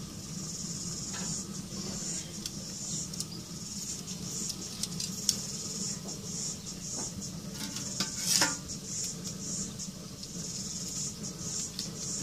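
Metal tongs and wire smoker racks clinking and scraping as racks of smoked salmon frames are pulled from the smoker, with scattered clicks and one louder clatter about eight seconds in.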